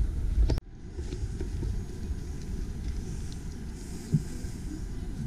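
Low steady outdoor rumble that drops abruptly less than a second in and carries on more softly, with a faint thump about four seconds in.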